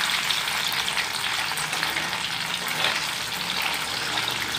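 Masala-coated catla fish pieces frying in hot oil in a metal pan, a steady sizzle.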